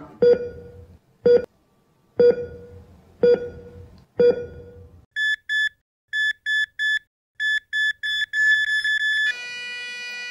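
Heart-monitor sound effect. About five beeps a second apart, each with a low thud, are followed by quicker, higher beeps in pairs. Near the end comes a long steady flatline tone.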